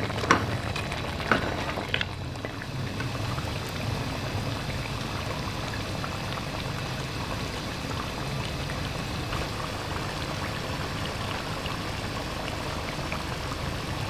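Mutton curry bubbling and frying in ghee in a metal pot, a steady bubbling hiss. A wooden spoon knocks against the pot a few times in the first two seconds.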